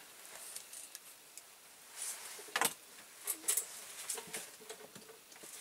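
Light clicks and taps of small diecast model-car parts being handled and fitted, a few sharp ticks spread through an otherwise quiet stretch.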